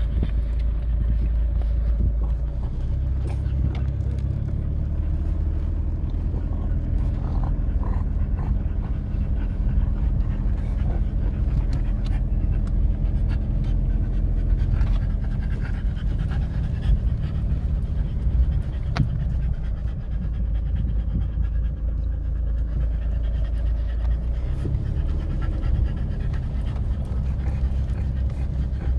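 A dog panting steadily inside a car's cabin, over the low rumble of the car being driven slowly across bumpy grass.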